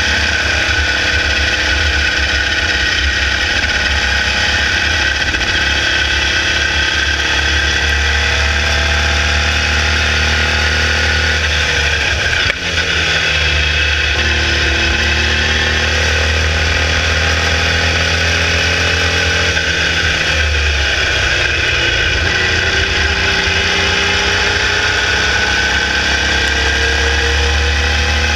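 Formula Vee's 1200cc air-cooled VW flat-four engine running hard at racing speed, heard from on board the car. Its note rises and falls with the gears and corners, with a brief break in the sound about twelve seconds in, and a fall then a climb again around twenty seconds in.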